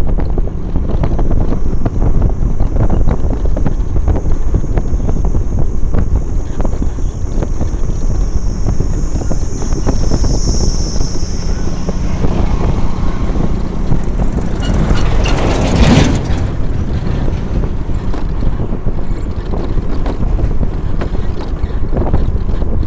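Wind buffeting the microphone over a steady vehicle rumble, as when filming from a moving vehicle on a road. A louder rushing sound rises and falls about fifteen seconds in.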